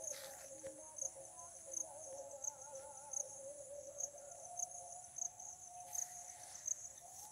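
Crickets and other insects chirping, a high chirp repeating about twice a second over a steady higher trill. Beneath them runs a faint, wavering lower tone.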